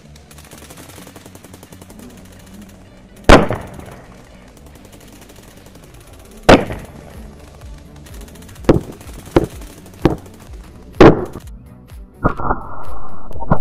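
Firecrackers going off one at a time in small toy cannons: six sharp, separate bangs, the first about three seconds in and the rest coming closer together.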